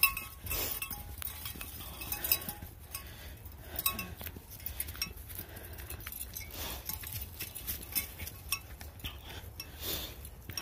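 Footsteps crunching through dry fallen leaves on a dirt trail, an uneven run of crackling steps, with light metallic jingling from dog collar tags.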